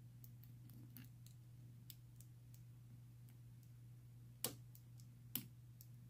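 Faint metal clicking of a lock pick working the pins inside an old Corbin USN pin-tumbler padlock, with two sharper clicks about a second apart past the middle. A faint steady hum sits underneath.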